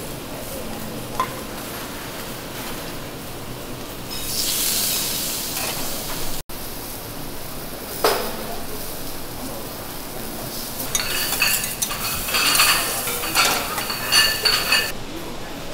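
Food sizzling on a teppanyaki steel griddle. In the last few seconds, metal spatulas scrape and clink repeatedly against the griddle plate, ringing.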